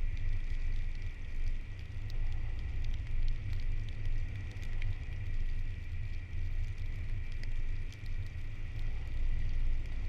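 Car driving on a road: steady low road and engine rumble with a steady higher hiss, and faint scattered ticks through it.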